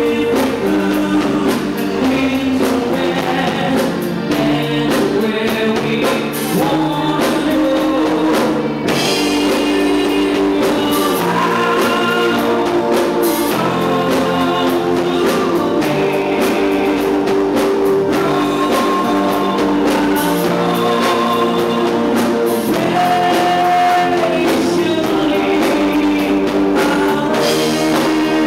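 Live rock band playing: a man sings lead vocals into a microphone over electric guitar and band backing, loud and steady throughout.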